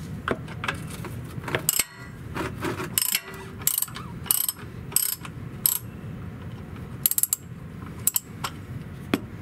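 Hand ratchet with a 5/8 socket loosening an oil pan drain plug: the pawl clicks in short runs on each back-swing, about once a second.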